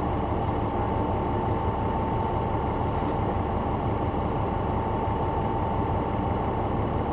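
Caterpillar C9 ACERT inline-six diesel of a Neoplan AN459 articulated bus running steadily, heard from the rear of the cabin near the engine. It is a deep, even rumble with a constant high whine over it.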